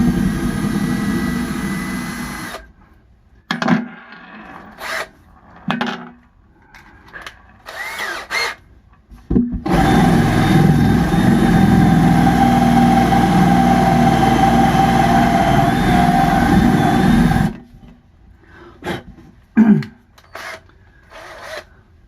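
Power drill running in spurts: a couple of seconds at the start, several short bursts, then one long steady run of about eight seconds, and two quick bursts near the end. This is the drill boring the hole for a cabinet knob in a wooden dresser.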